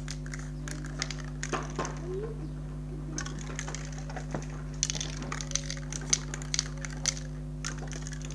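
Spray-paint aerosol can being handled and shaken, its mixing ball rattling in short irregular clicks that are busiest about five to seven seconds in, over a steady low hum.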